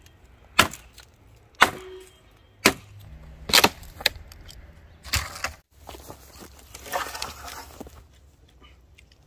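Dry wood being struck: five sharp wooden knocks about once a second, then a longer rough crackling about two-thirds of the way in, as branches are hit and broken for firewood.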